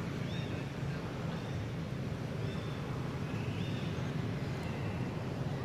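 Outdoor ambience: a steady low hum with a faint hiss, and short high chirps recurring about once a second.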